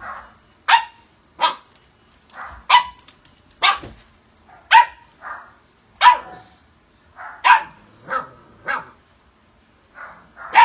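Siberian husky puppy barking in a run of short, sharp barks, about one a second and some in quick pairs. The owner takes them as the puppy asking the older dog to come and play.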